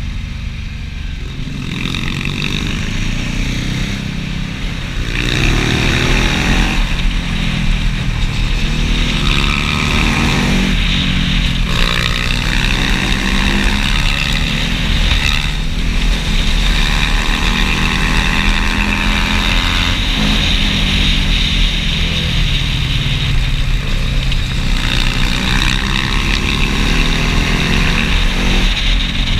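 Motorcycle engine running under way, its pitch rising and falling as it accelerates and eases off, with a steady rush of wind noise over the microphone. It gets louder about five seconds in.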